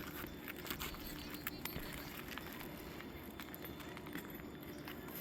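Scattered light clicks and scrapes from hand tools prying roofing nails out from under brittle asphalt shingles.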